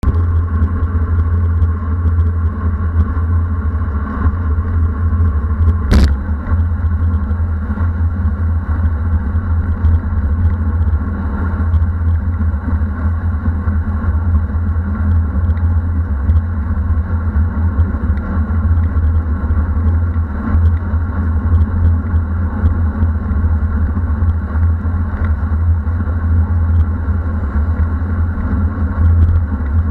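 Strong headwind buffeting the microphone of a bike-mounted action camera while riding, a steady loud low rumble mixed with road noise. A single sharp click about six seconds in.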